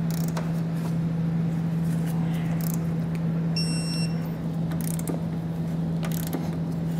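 Torque wrench torquing down the trailer hitch's mounting nuts: scattered sharp ratchet clicks, with a high beep just under a second long about halfway through, over a steady low hum.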